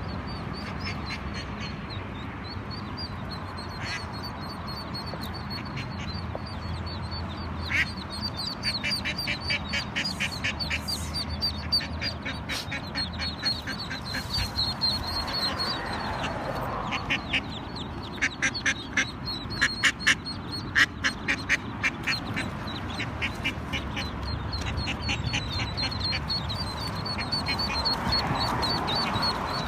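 Ducklings peeping high and nonstop from inside a storm drain, with a duck quacking in quick runs of short calls through the middle.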